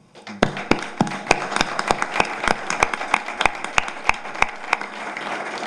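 Audience applauding. One person's loud, evenly paced claps, about three a second, stand out over the crowd's clapping. It starts about half a second in and is thinning near the end.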